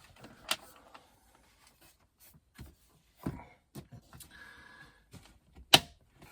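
Scattered sharp clicks and knocks of tools and plastic interior trim being handled around the sun visor mount in a car cabin, with a brief thin squeak just before the loudest click about two-thirds of the way through.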